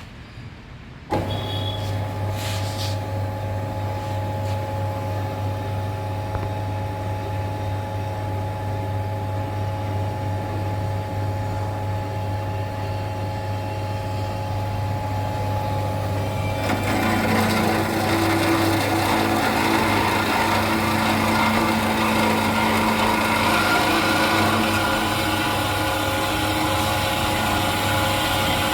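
Metal-cutting band saw switched on about a second in, its motor running with a steady hum. About two-thirds of the way through, the blade starts cutting into the metal stock, adding a louder rasping noise.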